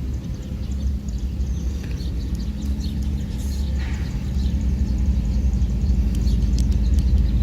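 Steady low rumble with a constant hum under it, and faint light clicks and rustles of the AirPods packaging and case being handled.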